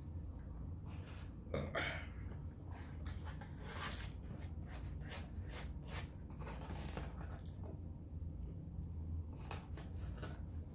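Close-miked chewing and mouth sounds while eating meat: wet smacks and clicks in irregular clusters, over a steady low hum.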